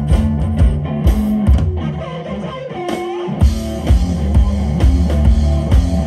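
Rock music with guitar and drums. About halfway through, the drums and bass drop out for a moment under a bending guitar note, then the full band comes back in.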